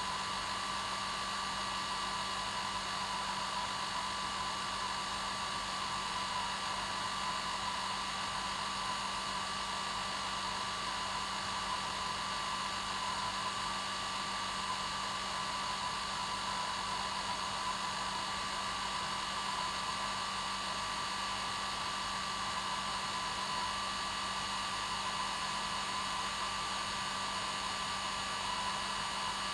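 Electric hair dryer running steadily: a constant blowing hiss with a steady motor hum and a thin whine that never changes.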